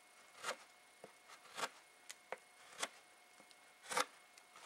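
Belt knife shaving a cedar board, a series of short, separate scrapes at an uneven pace, the loudest about four seconds in.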